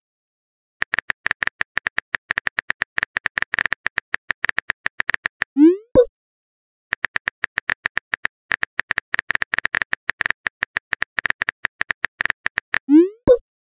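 Texting-app sound effects: runs of quick keyboard-typing clicks, each run ending in a short rising 'bloop' and a click as a message is sent, once about six seconds in and again near the end.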